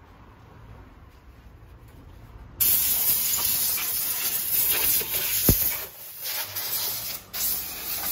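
Loud hissing spray over the engine bay while it is being cleaned. It starts suddenly about two and a half seconds in and breaks off briefly twice near the end.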